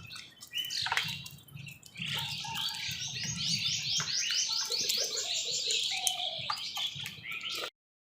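Birds calling, with a fast run of high repeated chirps, about four a second, from about two seconds in. The sound cuts off abruptly near the end.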